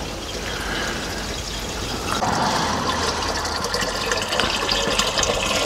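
Water from a hose pouring steadily into a barrel, filling it. The rush grows a little louder about two seconds in.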